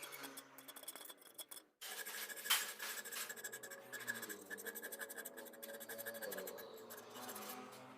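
Rapid, repeated scratching and rasping strokes of a steel blade being worked by hand with an abrasive. The sound breaks off briefly about two seconds in and comes back louder.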